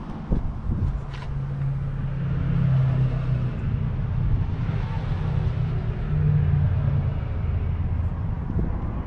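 New Holland T7.210 tractor's 6.7-litre six-cylinder diesel engine running with a steady low hum, its note shifting slightly around six seconds in. A sharp knock sounds near the start.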